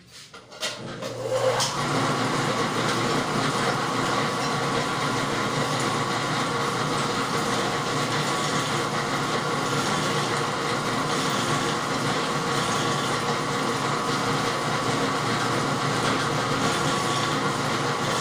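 Dough roller machine starting up about a second in, then running steadily as dough is passed through its rollers to sheet it thin.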